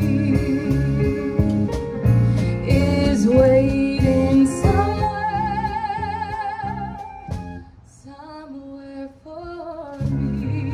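Female singer with a small live band of drum kit and guitar, performing a show tune. About five seconds in she holds one long note with vibrato over the band; the music thins out and drops quieter for a couple of seconds, then the full band comes back in near the end.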